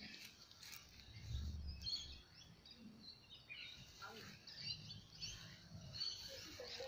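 Faint bird chirps and calls, short and scattered throughout, over a low background rumble.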